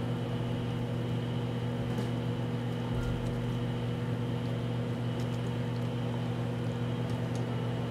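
A steady low machine hum with no change in level, and a few faint ticks and rustles from hands pulling kitchen string off a roast on a wooden cutting board.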